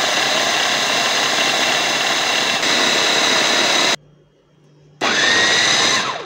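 Electric mini chopper's motor running at full speed, its blade grinding roasted sesame seeds into powder. It stops about four seconds in, starts again about a second later with a rising whine as it spins up, and cuts out briefly near the end.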